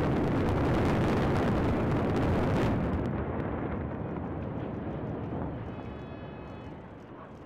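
A 15-storey concrete tower block coming down in a controlled explosive demolition: a loud rumble of collapsing concrete with crackling. It eases after about three seconds and fades into a dying rumble.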